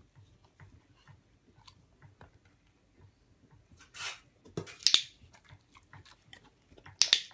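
Dog chewing and licking treats from a hand, with small wet smacks throughout. Two sharp, loud clicks of a training clicker, about five and seven seconds in, mark the dog's correct behaviour.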